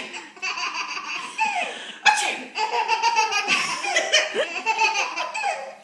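Baby laughing in repeated belly-laugh bursts, set off by an adult's fake sneezes. The loudest burst starts sharply about two seconds in.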